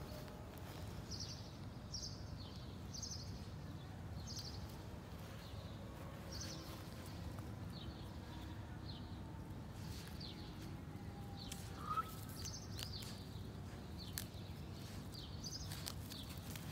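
Small birds chirping repeatedly over a steady low outdoor background noise, with one brief sharp squeak about twelve seconds in.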